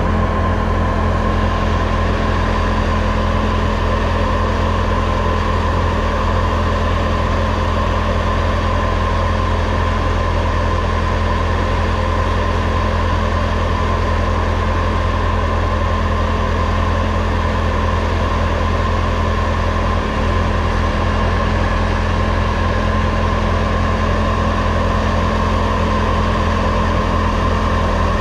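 Engine running steadily at a constant speed: a loud, even low hum with a mid-pitched whine over it, unchanged throughout.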